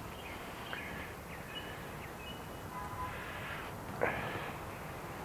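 Steady outdoor background noise with a few faint, short, high bird chirps, and a brief louder sound about four seconds in.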